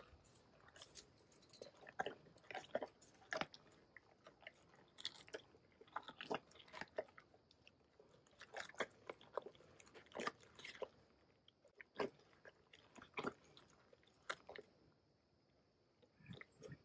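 A liliger (lion–liger hybrid) chewing and crunching food taken from a hand, with irregular wet crunches and clicks, getting quieter near the end.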